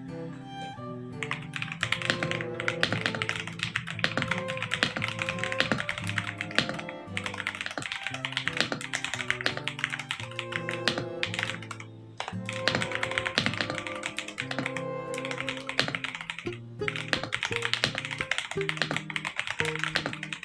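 Fast typing on a KZZI K75 mechanical keyboard: a dense run of key clacks that starts about a second in, with two brief lulls, over background music.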